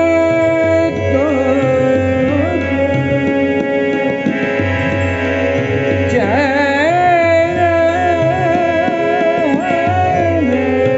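Male vocalist singing Hindustani classical raga Chandrakauns, holding long notes and sliding between pitches in ornamented phrases, over a steady drone and a rhythmic percussion accompaniment.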